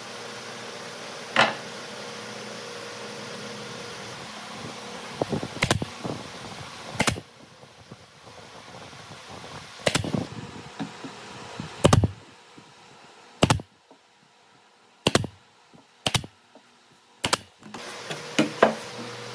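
Nail gun firing nails into solid wood boards: a series of about a dozen sharp shots at irregular intervals, a second or so apart near the end, over a steady shop hum.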